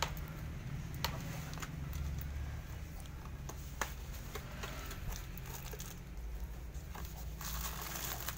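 A small blade slitting the tape and plastic seal on a cardboard aquarium-filter box, with a few sharp clicks and scraping. Near the end, rustling and crinkling as the box is opened and its plastic bag pulled out, over a low steady hum.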